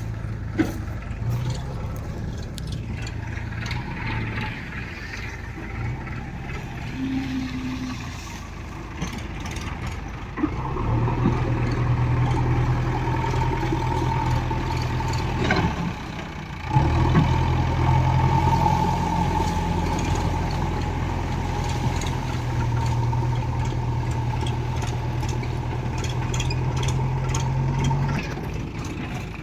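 Diesel engine of heavy farm machinery running steadily, growing louder about ten seconds in. It drops briefly, then runs louder again until near the end, with a thin steady whine alongside during the louder stretches.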